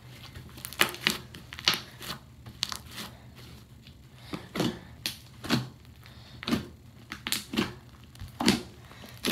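A large glue slime being kneaded and folded by hand. It gives irregular sharp pops and squelches, about one or two a second.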